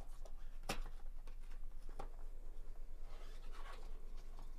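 Cardboard box being handled and opened by gloved hands: a sharp tap about two-thirds of a second in, a lighter one at two seconds, then cardboard flaps rustling and scraping around three seconds in.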